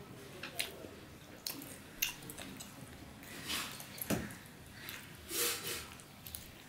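Close-miked mouth sounds of eating curry and rice by hand: wet chewing and smacking, with scattered small clicks and a few short wet slurps.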